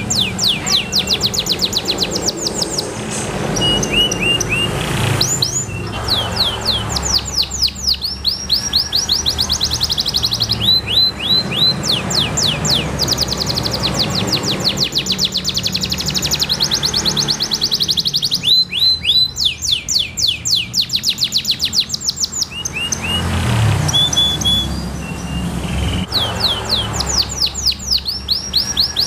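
Domestic canary singing: phrases of a few seconds each, made of fast, even runs of high sweeping notes, with short pauses between phrases.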